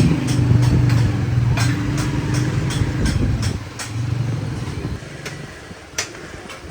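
A motor or engine running with a low hum that swells and fades, with repeated sharp clicks over it; the hum dies down about five seconds in, leaving only scattered clicks.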